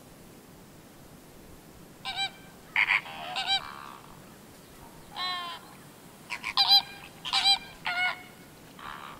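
Greater flamingos honking: about a dozen short honks from more than one bird, starting about two seconds in, some overlapping at different pitches.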